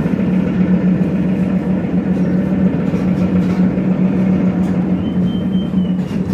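BTZ 5276.04 trolleybus in motion, heard from inside the passenger cabin: a steady low electric hum over the rumble of tyres on the road.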